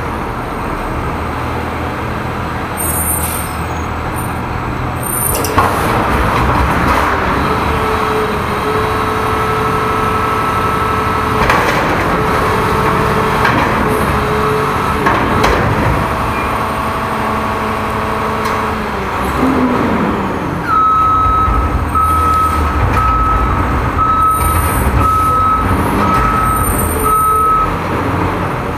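Front-loader garbage truck emptying a dumpster: the diesel engine runs up under load while the hydraulic forks lift the dumpster over the cab, with a steady whine and a few sharp metal bangs. Later the truck's back-up alarm beeps about once a second, seven times.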